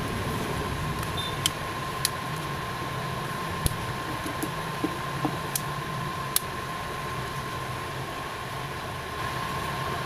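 Steady mechanical hum with a thin high whine, broken by about six small sharp clicks in the first two-thirds as hands handle the phone's plastic case and parts.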